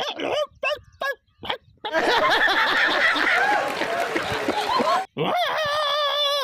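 Comedic vocal sound effects: a few short squeaky voice bursts, then about three seconds of many voices jumbled together with laughter, then a long, warbling, wavering call near the end.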